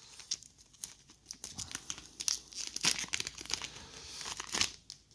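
Foil booster pack wrapper being torn open and crinkled by hand: an irregular run of sharp crackles and rustles, loudest near the end.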